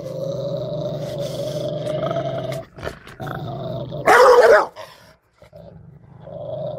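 Rottweiler growling steadily for a few seconds, then letting out one loud bark about four seconds in, with the growl building again near the end.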